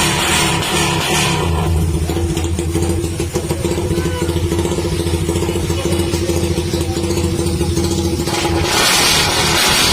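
Suzuki Raider R150 single-cylinder four-stroke engine running through an aftermarket conical exhaust pipe. The throttle eases off after the first second or so, and the engine is revved harder again near the end.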